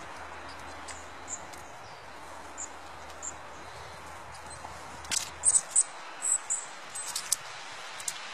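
Small songbirds giving short, thin, high-pitched calls, a few scattered at first and then a louder run of them with some sharp clicks from about five seconds in, over a steady outdoor hiss.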